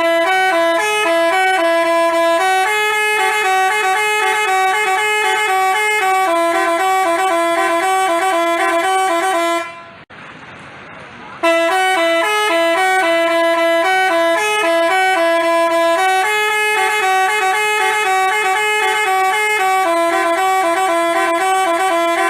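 Telolet basuri musical bus horn playing a tune in quick stepped notes, its tones sounding together in a chord-like blare. The horn cuts out for about a second and a half near the middle, then starts the tune again.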